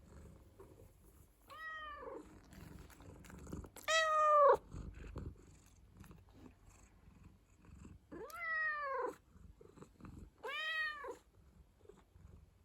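Domestic cat meowing four times, each call rising then falling in pitch, the second the loudest, with soft purring underneath between calls.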